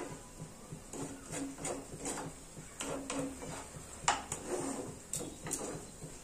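Wooden spatula stirring and scraping around a small black kadai of fried onions and poppy-seed paste. It makes a run of uneven scrapes and knocks, the sharpest about four seconds in.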